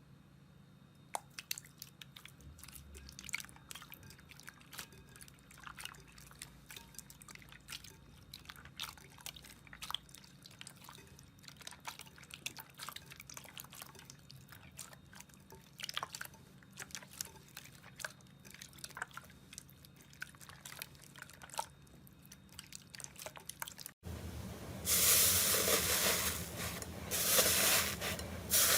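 Slime being squeezed and stretched by hand, making small sticky wet clicks and pops. After a sudden cut about 24 seconds in, a much louder, denser crackling squish takes over.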